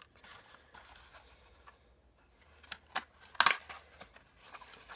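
A cardboard product box being opened and its mask packets pulled out: quiet rustling, then a few sharp crackles and snaps of the packaging, the loudest about three and a half seconds in.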